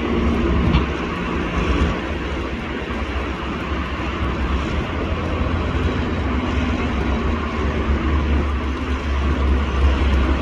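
Steady low engine rumble of heavy machinery, with a faint humming tone in the first second or two.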